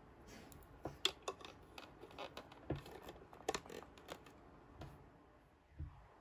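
A miniature toy bunk bed and its small pieces being handled and set in place: a run of irregular light clicks and taps, with two duller knocks as something is put down.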